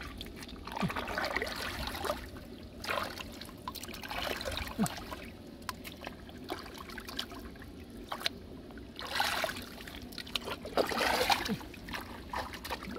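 Hands digging and scooping through wet mud in shallow water: bouts of sloshing, trickling splashes, each about a second long, recurring several times, with a few small clicks.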